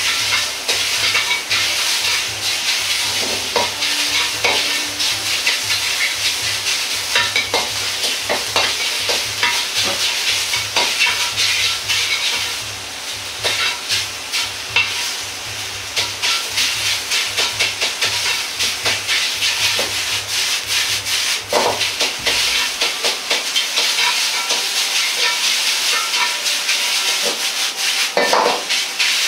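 Sliced pork sizzling as it is stir-fried in a wok, with the metal ladle scraping and clicking against the wok over and over. A low rumble underneath stops abruptly about three quarters of the way through.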